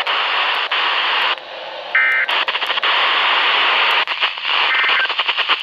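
Weather radio static hissing after the alert message, broken by a brief stack of data tones about two seconds in and a shorter one near the end, typical of the Emergency Alert System end-of-message code.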